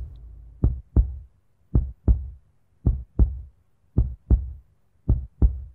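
Heartbeat sound effect: five slow double thumps in a lub-dub pattern, about one beat a second.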